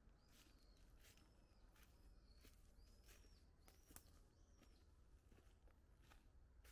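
Faint footsteps crunching on dry fallen leaves at an irregular walking pace, with soft high bird chirps now and then.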